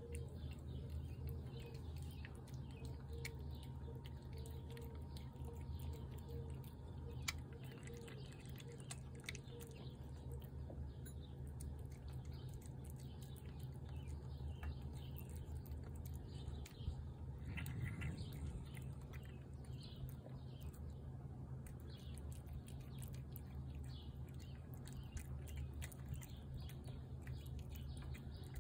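A cat eating wet food from a plate: soft, quick chewing and lapping clicks. Birds chirp in the background over a steady low hum.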